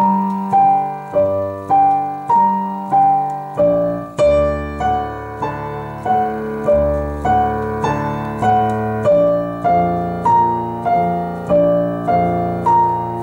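Digital piano on its concert-piano voice, playing repeated chords and a melody in an even pulse a little under twice a second. A deeper left-hand bass part comes in about three and a half seconds in.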